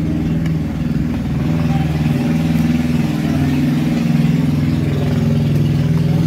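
An engine running steadily at an even speed: a loud, unchanging low hum.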